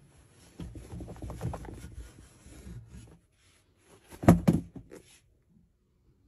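A cloth dust bag rustling and rubbing as a sneaker is pulled out of it. About four seconds in come two sharp knocks, the loudest sounds here.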